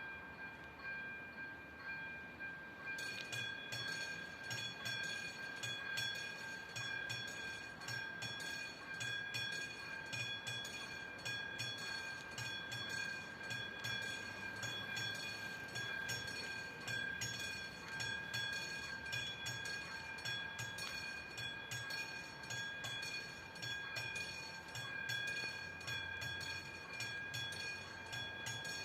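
Train passing over a level crossing, its wheels clicking rhythmically over the rails from about three seconds in. The crossing's electronic warning bell keeps ringing at a steady pitch underneath.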